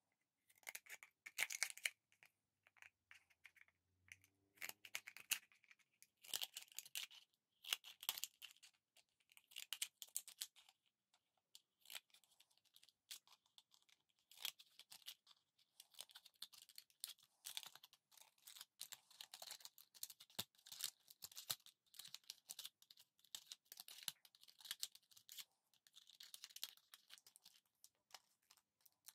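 Scissors snipping through a thin plastic bottle to cut it into petal strips: runs of short, crisp cuts with crackling of the plastic, coming in quick clusters separated by brief pauses.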